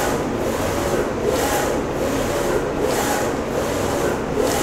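WER A1 ED6090UV LED flatbed UV printer printing: its print-head carriage shuttles back and forth along the rail with a steady mechanical whir, swelling about every second and a half as each pass goes by.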